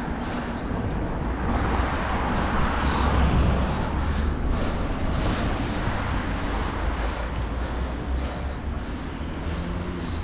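Outdoor road noise: wind rumbling on the microphone and passing traffic, getting louder around three seconds in.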